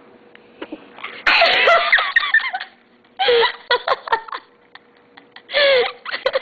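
A young girl sneezes once about a second in, followed by bursts of giggling and laughter.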